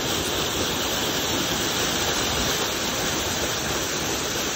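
Steady rush of falling water close to the microphone, with a person standing under it to shower.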